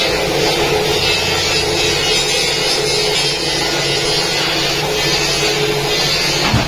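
Steady mechanical noise of a running machine or power tool, an even hiss with a constant hum underneath, unbroken throughout.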